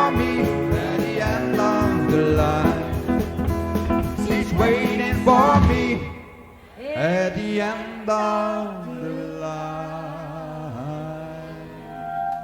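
Country band with drums, guitars and a singer playing the final bars of a song. About six seconds in, the beat stops, and a held closing chord with sliding, bending notes rings out and slowly fades.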